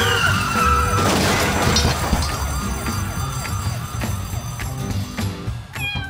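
Cartoon soundtrack with a fast, warbling siren-like wail over music. A falling tone comes at the start, and a crash-like hit about a second in.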